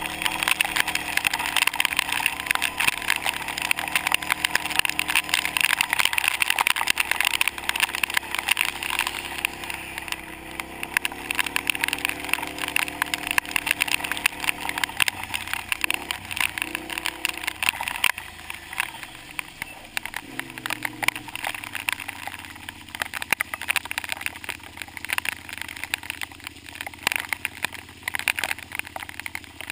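Kawasaki KFX700 ATV's V-twin engine running at road speed, then easing off and slowing in the second half. A dense crackle of rain hits the helmet camera's waterproof housing throughout.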